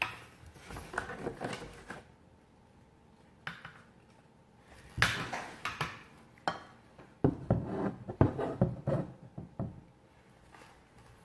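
Objects being handled and knocked together: irregular clusters of clinks, knocks and rustling, in the first two seconds, again about five seconds in, and most busily from about seven to nine seconds.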